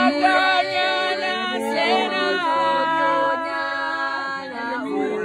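Several voices singing together without instruments, in long held notes that slide between pitches.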